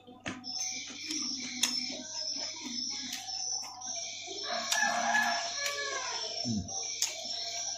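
A rooster crows once, about halfway through, over a few small sharp clicks.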